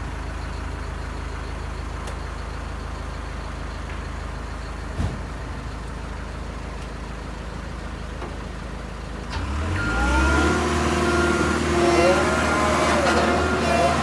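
Caterpillar road roller's diesel engine idling with a low hum, then revving up about nine seconds in as the machine moves off, with whining tones that rise and fall. A single knock about five seconds in.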